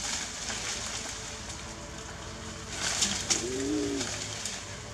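Leaves and branches of a small tree rustling as a monkey moves among them, louder in two quick bursts about three seconds in. Just after the bursts comes one short, low coo that rises and falls.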